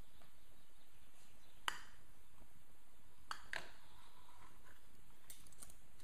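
Knife and fork clinking against a plate while cutting a stuffed veal roll in half: one sharp clink a little under two seconds in, two more just after three seconds, and a few lighter taps near the end, over a steady hiss.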